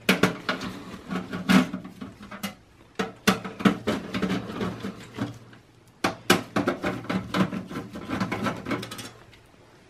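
Screwdriver backing screws out of the steel hard drive cage of a desktop computer case: a run of small metallic clicks and scrapes, with a short pause a little past halfway.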